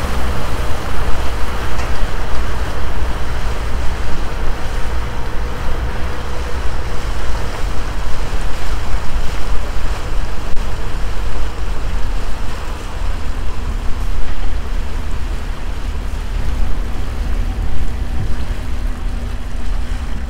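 Passenger boat under way: its engine running steadily and water rushing past the hull, with wind buffeting the microphone in uneven gusts.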